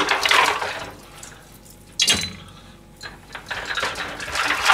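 Water running from a kitchen tap as dishes are rinsed. There is a sharp knock of crockery about two seconds in, and more clatter near the end as a plate is set into the dishwasher rack.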